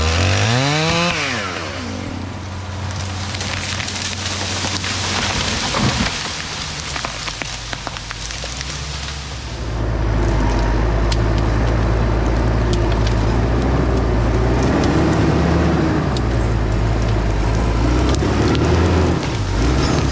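Tree-felling work: a chainsaw revs up briefly, followed by several seconds of crackling and rushing wood and splintering. About halfway through, a heavy logging machine's engine takes over, running steadily with a few slow swells in pitch.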